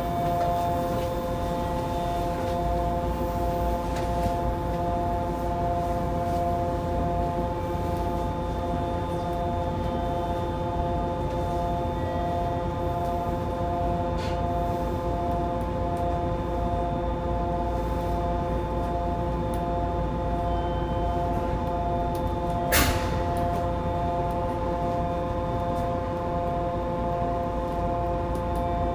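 Yokohama Municipal Subway 3000A train's onboard electrical equipment giving a steady hum of several whining tones, one of them pulsing, over a low rumble, with no rise or fall in pitch. A single sharp click about 23 seconds in.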